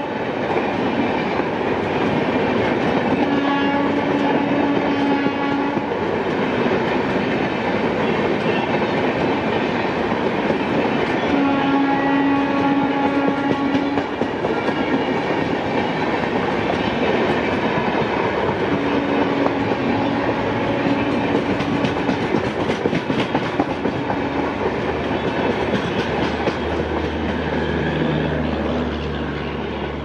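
Passenger coaches rolling past at speed, with a steady rumble and the clatter of wheels over rail joints. A train horn sounds three long blasts several seconds apart. A low hum comes in near the end.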